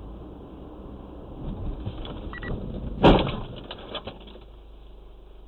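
Steady engine and road hum heard inside a car through a dashcam, broken about three seconds in by one loud bang and a few short rattles: a collision with another car.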